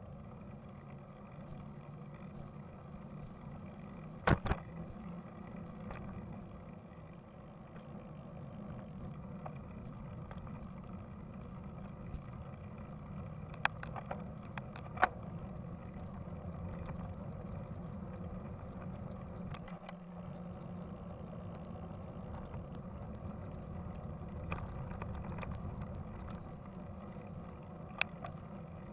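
Steady low rumble of a bike on the move, with a few sharp knocks or rattles: one about four seconds in, two close together around the middle, and one near the end.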